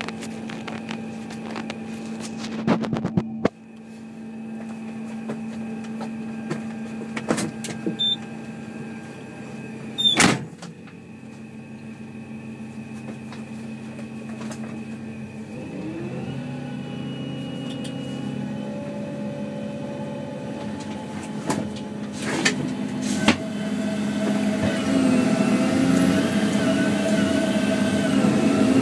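Diesel engine of a tracked feller buncher running steadily, with the whine of its hydraulics as the Satco 630 felling head is moved, and several sharp knocks and clicks along the way. In the last few seconds the engine and hydraulics load up and grow louder as the head is brought to a tree.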